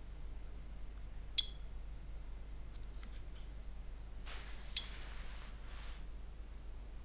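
Light handling sounds of a DJI Osmo Pocket 3 pocket gimbal camera: a sharp click about a second and a half in, a few faint taps, then a soft rustle of fingers on the plastic body with another click just past halfway.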